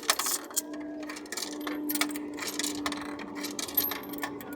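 Coins being put into a kiddie ride's coin slot, clicking and clinking through the coin mechanism in a run of sharp clicks over a steady electrical hum.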